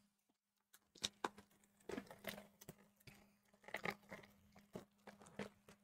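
Faint crinkling and tearing of a shrink-wrapped trading card box being opened: a scatter of short, quiet crackles and ticks.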